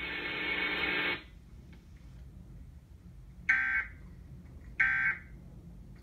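EAS end-of-message tones played through a television speaker: short bursts of warbling digital data tones, two of them about a second and a half apart, which signal that the emergency alert test is over. The station's audio cuts off about a second in, before the first burst.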